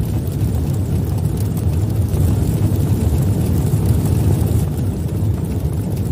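Steady low rumble of an intro sound effect behind an animated logo, with a faint hiss above it and no tune or beat.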